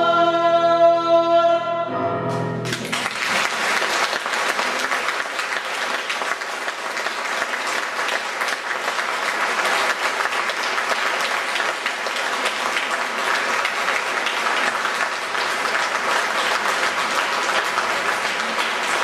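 A cantor's long held sung note with piano ends about two seconds in, followed by steady audience applause.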